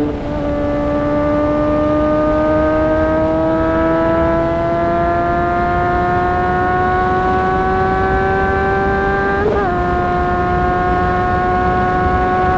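2008 Honda CBR600RR's inline-four engine pulling steadily under load, its note climbing slowly for most of the stretch. About three-quarters through it gives a brief blip as the rider shifts up, and it then holds a slightly lower, steady pitch. Wind rumble on the microphone runs underneath.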